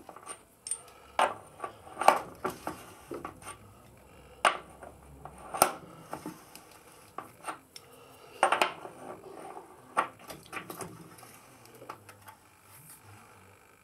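Metal hand tools clinking and knocking against metal during work on a motorcycle's rear axle: irregular sharp clinks, the loudest about two seconds in and near six seconds.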